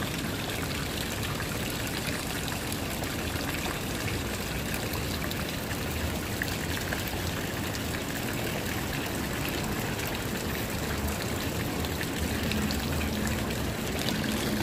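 Fountain water splashing and trickling steadily.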